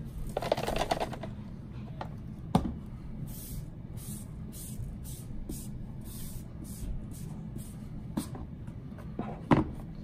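Hands handling the plastic parts of a Roomba i7 robot vacuum. A brief rustle comes first, then scattered sharp plastic clicks and knocks, the loudest near the end, with a run of faint short hissing strokes in the middle.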